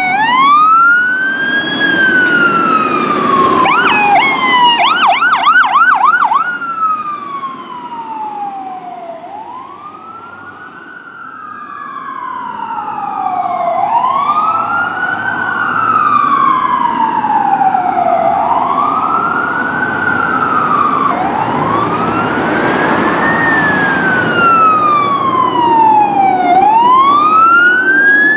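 Fire truck siren on a wail, sweeping up and down every four to five seconds, with a second siren's rapid warble laid over it for about two seconds about four seconds in. It fades down to about ten seconds in, then grows loud again.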